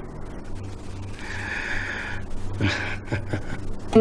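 Breathy laughter: a long rush of breath about a second in, then a few short laugh pulses near the end.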